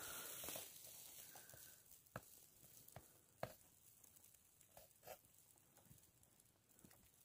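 Near silence, with a handful of faint clicks and soft wet sounds as a knife slits open the belly of a hanging steer carcass.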